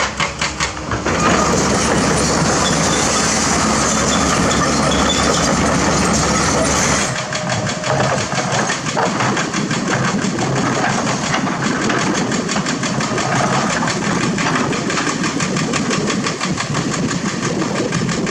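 Kobelco SK200 excavator's diesel engine running under load while digging. The sound changes abruptly about seven seconds in, becoming rougher and more uneven.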